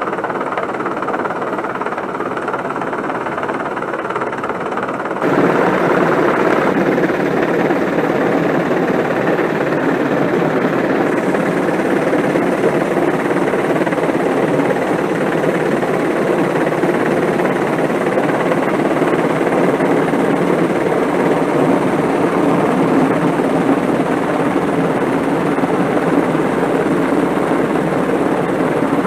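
AW101 Merlin rescue helicopter hovering low overhead during a winch hoist, its rotors and engines making a loud steady roar. The noise gets louder about five seconds in.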